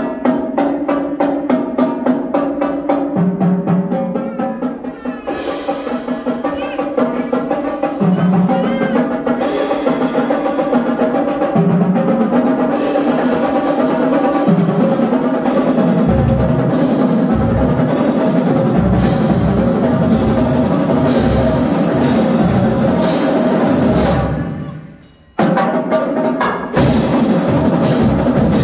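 Drumline (battery percussion) performing: rapid drum strokes and rolls over sustained pitched notes, with heavy bass drum hits joining about halfway through. Near the end the ensemble cuts off sharply for a moment, then comes straight back in.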